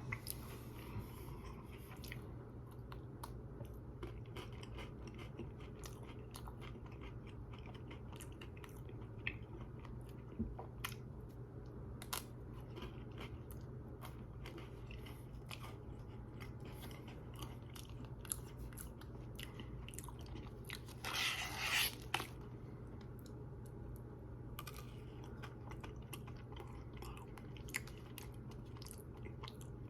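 Close-up chewing and crunching of chocolate-covered Pocky biscuit sticks, with scattered small crisp snaps and crunches and one louder noisy burst about two-thirds of the way through. A steady low hum lies underneath.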